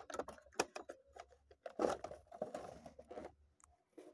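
Clear plastic packaging insert crackling and clicking as hands work it out of a toy car box, in irregular bursts that are loudest about two seconds in.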